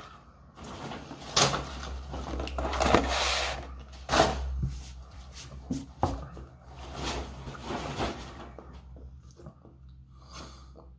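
Cardboard fast-food boxes and paper packaging being handled on a table: rustling with a series of irregular knocks and taps through most of the stretch, dying away near the end.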